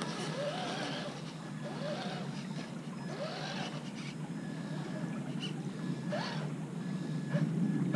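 Traxxas TRX-4 RC crawler's electric drivetrain whining as the truck drives across sand toward the creek, over a steady hiss of flowing water.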